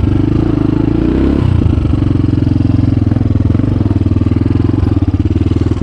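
Hero Honda motorcycle with a modified exhaust, running under way with an even, rapid beat of exhaust pulses. The engine note shifts briefly about a second and a half in, then settles again.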